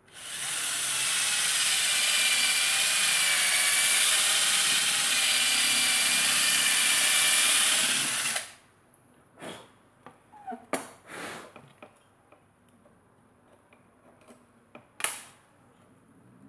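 Electric drill running steadily for about eight seconds while enlarging a hole that is too small for a cable, then stopping. A few short knocks and clicks follow.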